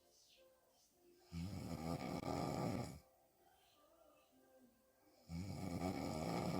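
A woman snoring hard with her mouth wide open: two long snores, each about a second and a half, roughly four seconds apart, with quiet breathing between.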